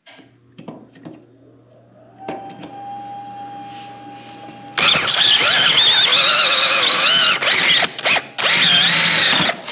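Power drill with a 3/16-inch bit drilling out a pop rivet: a few handling clicks and a quieter steady whine, then from about five seconds in a loud wavering squeal, broken briefly a few times, as the bit cuts into the rivet head.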